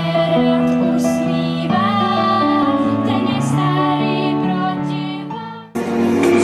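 Two girls singing a song from a fairy tale or musical into microphones over an amplified backing track. Near the end the song fades and cuts off abruptly, and another song with a female singer begins.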